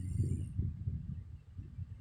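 A woman snoring in her sleep: a low, rough, fluttering breath that eases off about a second and a half in.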